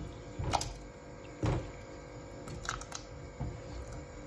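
Diced white asparagus pushed by hand off a wooden cutting board into a saucepan of thick soup: a few soft knocks and plops, the loudest about a second and a half in.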